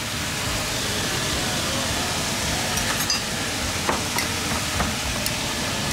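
A metal spoon stirring seasoning into a little water in a ceramic mug, clinking against the sides several times, over a steady hiss.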